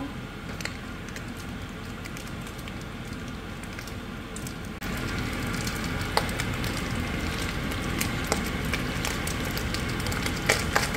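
Browned ground meat and freshly added chopped vegetables sizzling in a stainless steel pan, with scattered crackles and pops, louder from about halfway through. Near the end a wooden spoon starts stirring, with a few clicks against the pan.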